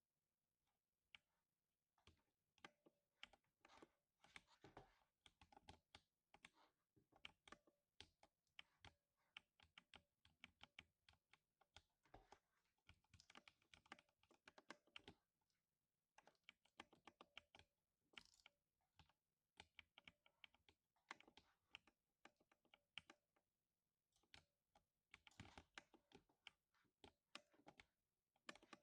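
Steady typing on a 60% mechanical keyboard with lubed switches: quiet, rapid keystrokes in runs, broken by short pauses. It starts after a single keystroke about a second in.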